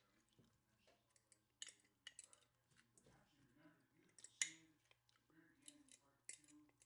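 Near silence with a few faint, short clicks and clinks, the most distinct about four and a half seconds in.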